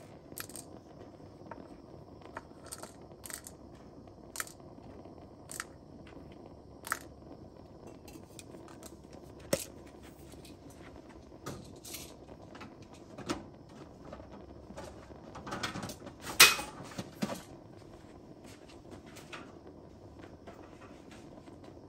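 Scattered light clicks and ticks, irregularly spaced, over a faint steady hiss as a small model Stirling engine is heated for another start, with a denser burst of louder clicks about sixteen seconds in. There is no regular running beat, so the engine is not yet turning over steadily.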